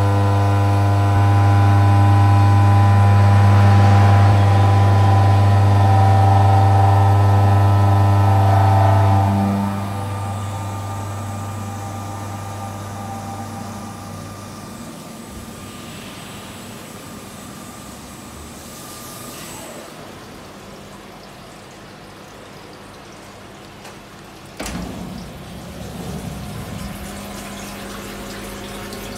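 SYIL 7 CNC milling machine cutting 45# steel under flood coolant: a loud, steady machine hum that drops away about ten seconds in, leaving a quieter wash of coolant spray. A single knock about 25 seconds in.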